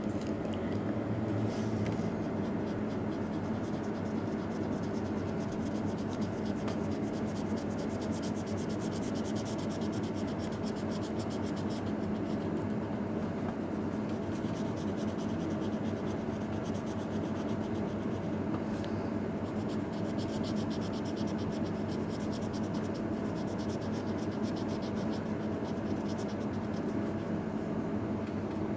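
Black felt-tip marker scratching on paper in quick back-and-forth strokes, colouring in a filled area; the strokes grow dense about eight seconds in. A steady low hum runs underneath.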